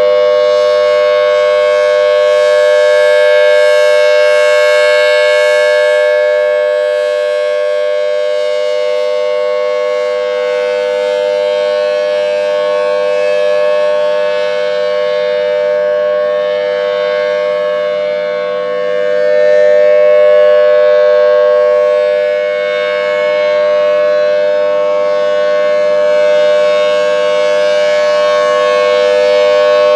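Federal Signal Thunderbolt 1000T tornado siren sounding a steady tone during a test: two close pitches held together without rising or falling, swelling and fading slightly in loudness over several seconds.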